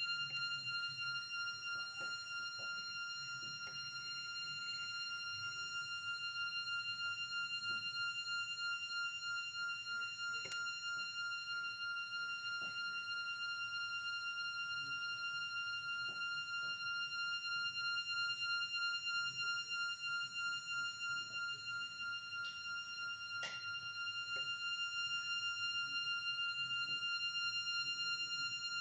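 A steady high-pitched ringing tone with overtones, pulsing evenly in level, with a few faint clicks scattered over it.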